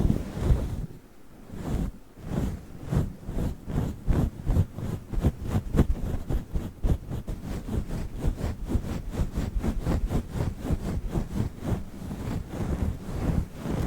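Fluffy microphone windscreen rubbed and scratched right on the microphone in quick repeated strokes, about four a second, giving a muffled, low brushing. There is a short pause about a second in.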